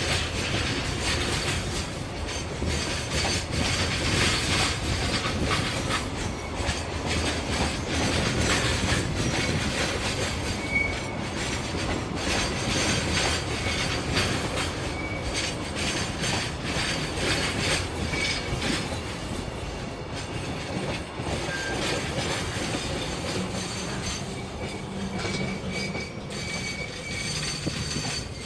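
DD16 diesel-hydraulic locomotive shunting with its train, wheels clicking and clattering over the rails, with several short, high wheel squeals.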